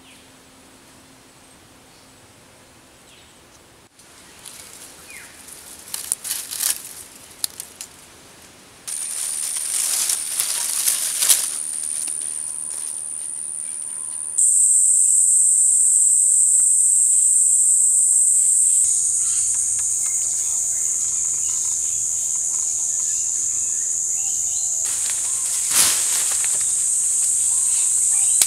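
Forest insects in a steady, high-pitched droning chorus that jumps abruptly in pitch and loudness a few times. Brief rustling and crackling of dry leaves comes in the first half, and a single sharp snap near the end.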